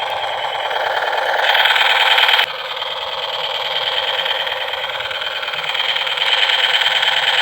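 Toy M416 soft-dart rifle's electronic sound effect: a continuous, rapidly rattling buzz that gets louder about a second and a half in, drops back a second later and builds again near the end.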